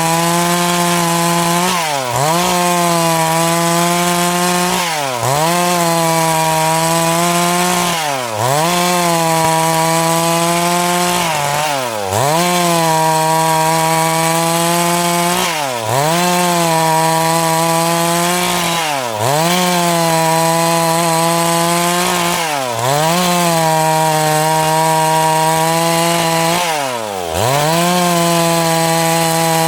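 Two-stroke chainsaw running at high revs while cutting through wood, its pitch dipping sharply and recovering every three to four seconds.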